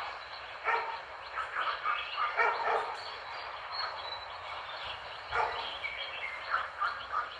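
A dog barking repeatedly in short calls, several in quick succession in the first few seconds and a few more near the end, over a steady hiss.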